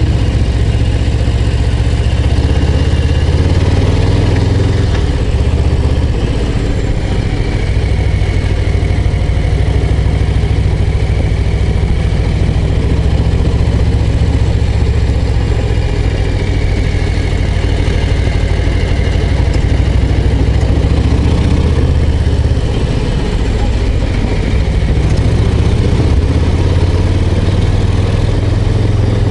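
Harley-Davidson Low Rider ST's Milwaukee-Eight 117 V-twin running under way, a steady deep engine sound whose revs rise and ease off a few times as the bike is ridden.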